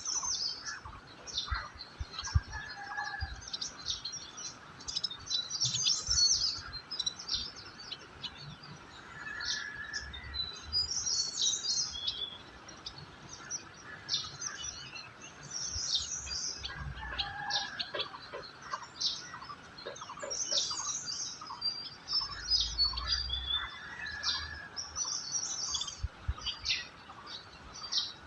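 Several songbirds chirping and trilling together in quick, high-pitched phrases, over a faint low rumble.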